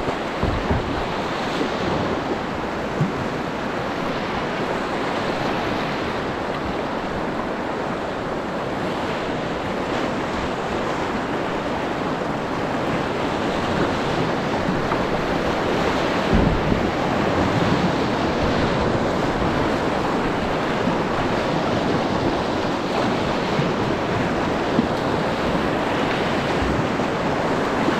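River Dee white-water rapids rushing and churning over rocks, heard from right at the water surface as a loud, steady wash, with occasional low buffeting on the microphone.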